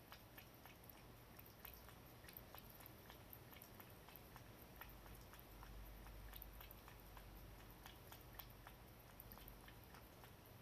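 Cat lapping water from a ceramic bowl: faint, quick wet clicks, several a second.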